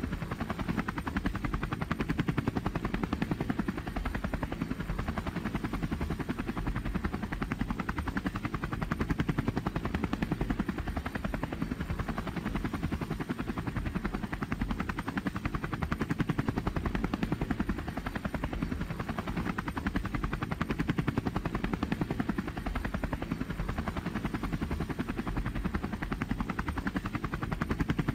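Light helicopter's engine and rotor heard from inside the cabin in steady forward flight: a low drone with a fast, even chopping beat.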